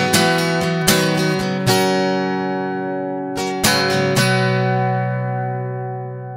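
Background music: acoustic guitar strumming a few chords, slowing to a last chord a little past four seconds in that rings on and fades away.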